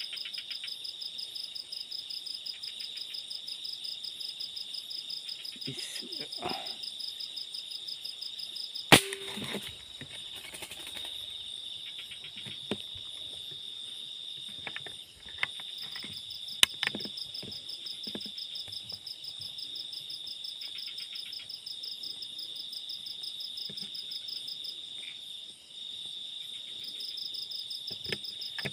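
Steady night chorus of crickets, a high pulsing trill, broken by sharp air-rifle shots aimed at roosting green pigeons: a loud one about nine seconds in, followed by a brief rustling, and another near seventeen seconds.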